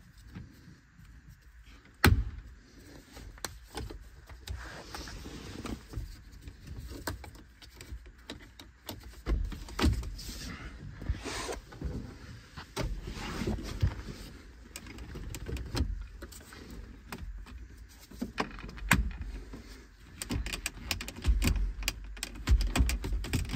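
Irregular clicks, knocks and scrapes of plastic and metal parts being handled and fitted around the clutch pedal box under a van's dashboard, with one sharp knock about two seconds in.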